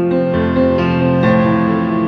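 Instrumental piano music: held notes and chords, the harmony changing twice.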